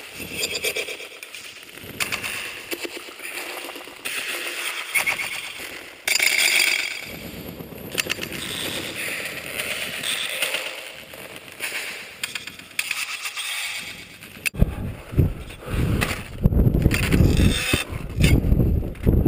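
Crampons and an ice axe crunching and scraping into hard snow, one step or swing after another, as a climber works up a steep snow slope. About 15 seconds in, gusting wind starts buffeting the microphone loudly.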